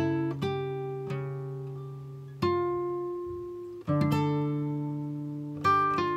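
Background music: acoustic guitar playing plucked chords, each struck and left to ring and fade, with a new chord every second or two.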